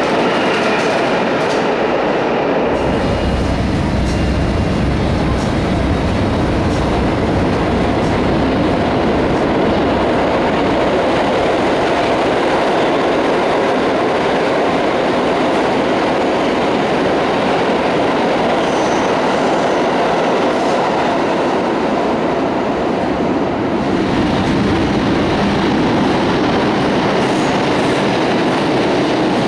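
New York City subway trains running through an underground station, a steady loud noise of steel wheels on rails with no break. The noise grows deeper about two and a half seconds in and thins a little near the end as the last cars pull away.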